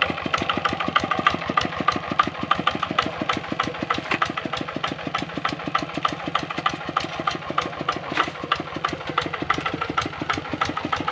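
Kubota RD65 single-cylinder diesel engine on a two-wheel hand tractor, running steadily with a fast, even beat of firing knocks.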